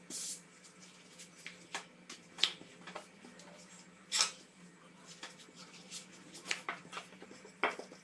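Wooden rolling pin rolling out a thin sheet of yeast dough on a floured silicone baking mat: scattered light taps and short swishes at irregular intervals, over a faint steady hum.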